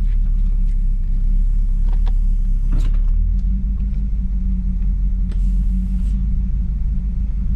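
Oldsmobile Toronado's engine running at low speed with a steady low rumble, while the car is being parked. A sharp click comes about three seconds in, and a short hiss lasting under a second comes about five and a half seconds in.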